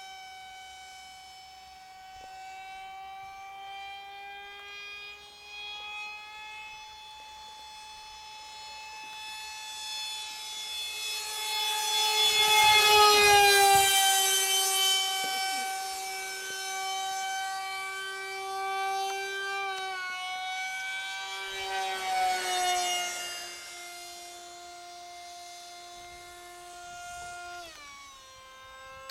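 MiG jet's engine whining as the aircraft flies past. The whine holds several steady tones that slide slowly in pitch. It swells loudest with a rushing noise about thirteen seconds in as the jet passes closest, swells again a little after twenty seconds, and its pitch drops near the end.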